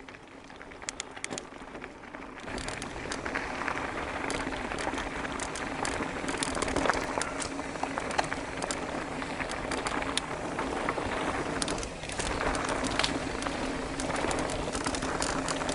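Mountain bike rolling along a dirt singletrack: a steady rush of tyre and wind noise with frequent small clicks and rattles, getting louder about two seconds in as the bike picks up speed.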